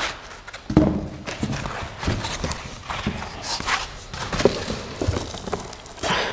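Parts and packing being handled and lifted out of a cardboard shipping box: irregular thuds and knocks against the cardboard, with short rustles of packing material.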